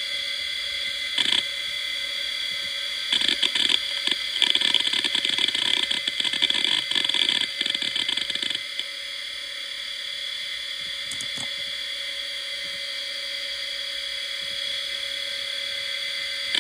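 Conner Peripherals CFS1621A (Seagate ST31621A) 3600 RPM hard drive spinning with a steady high whine, its heads seeking in a dense run of rapid clicks and chatter from about three to eight and a half seconds in. A short burst of seek clicks comes about a second in, and a few single clicks follow later.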